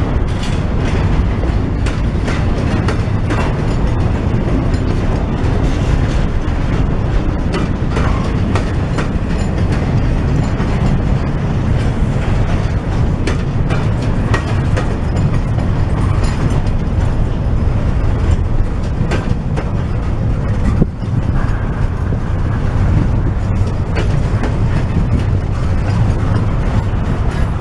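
Double-stack intermodal freight train rolling past: a steady low rumble from the container-laden well cars, with the wheels clicking over rail joints throughout.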